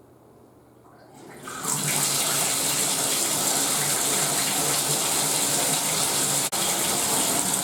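Water running from a bathtub spout, starting about a second in as the faucet is turned on to hot, then flowing steadily: the tub valve with its newly installed Moen 1225B cartridge now delivering water.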